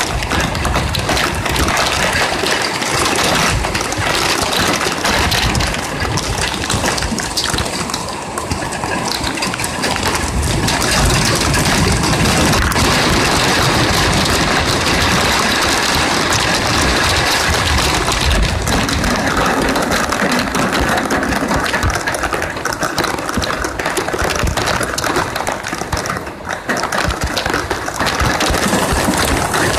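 Heavy rain drumming on a window ledge and on the body of the phone recording it: a dense, steady clatter of drops close to the microphone.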